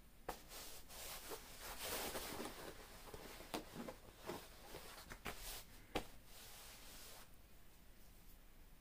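Faint rustling with several light clicks and taps, dying down about seven seconds in.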